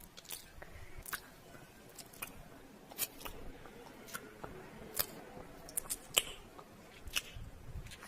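Kissing sounds: a string of short lip smacks, roughly one a second at an uneven pace.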